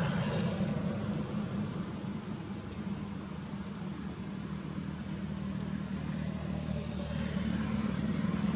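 Steady low hum of a motor vehicle engine running out of sight, dipping slightly midway and swelling again near the end.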